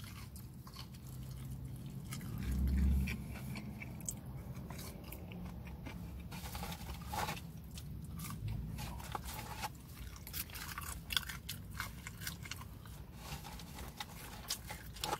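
Close-up chewing and biting of KFC Secret Recipe Fries, with scattered crisp clicks and crunches. A brief low rumble comes about two and a half seconds in.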